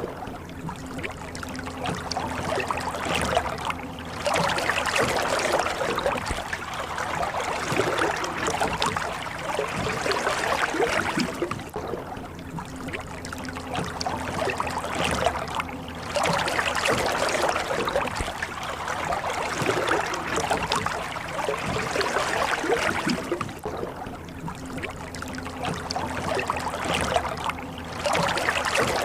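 Rowboat oars dipping and pulling through the water, stroke after stroke, each stroke a swash of splashing and trickling water. A steady low hum runs underneath.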